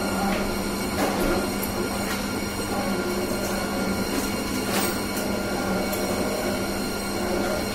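Semi-automatic cotton wick machine running: a steady motor hum with a strong low tone, and occasional short clicks from its mechanism.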